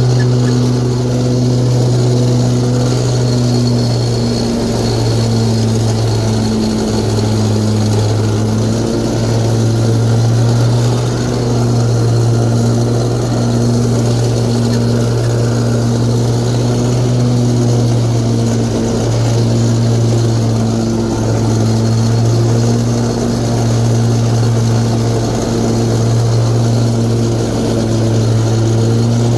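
Exmark Lazer Z zero-turn mower's 24-horsepower Kohler overhead-valve engine running at high speed with the cutting blades engaged. It makes a steady drone that wavers a little in pitch.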